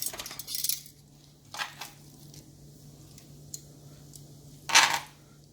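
Metal kitchen tongs clattering and clacking against a plate or cutting board as sliced steak is handled, with one loud clack near the end, over a low steady hum.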